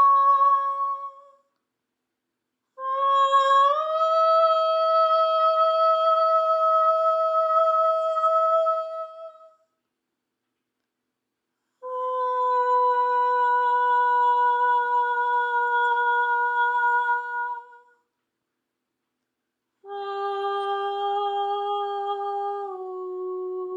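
A voice humming long, held tones for sound activation: the end of one note, then three more of about six seconds each, with short silent gaps between. The second tone slides up soon after it starts, and the last steps down near the end.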